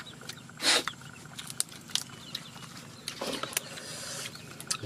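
Leaves and fresh vegetables rustling and crackling as they are torn and handled by hand, in a few short sharp bursts, the loudest about a second in. Chickens cluck faintly in the background.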